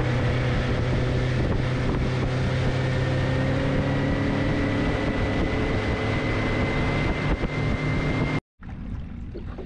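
Outboard motor of an aluminum bay boat running at speed, a steady drone with a whine that climbs slightly, over wind on the microphone and rushing water. It cuts off abruptly near the end, leaving a much quieter background.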